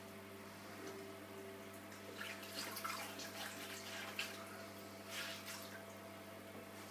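Faint water splashing and dripping in a bathroom sink, in a few short bursts about two and a half, four and five seconds in, over a steady low hum.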